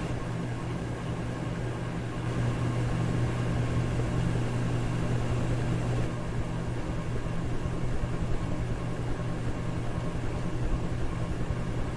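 Electric fan running steadily: an even rush of air over a low motor hum.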